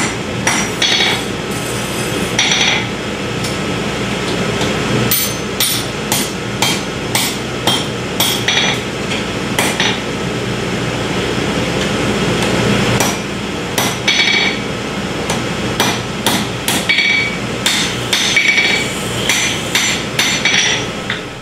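A ball-peen hammer striking a red-hot steel knife blank on an anvil as it is forged. The blows come in quick runs with short pauses, over a steady noise.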